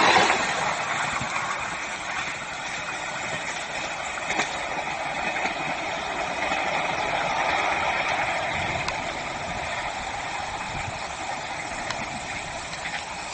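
Train passing close by: a steady rolling noise of wheels on rail with a few sharp clicks, after a louder burst right at the start, dying away at the very end.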